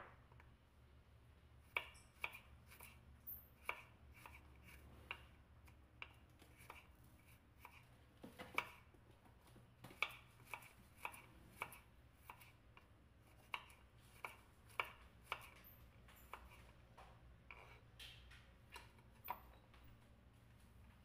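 Chef's knife slicing garlic cloves on a wooden cutting board: a run of sharp knocks of the blade on the wood, about two a second, with a few short pauses.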